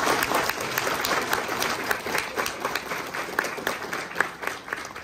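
Wedding guests applauding, the clapping thinning and dying away toward the end.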